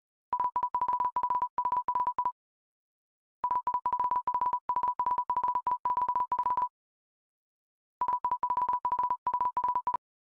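A single electronic beep tone of one pitch, keyed on and off rapidly in short and longer beeps. It comes in three runs with pauses of about a second between them, like a coded signal.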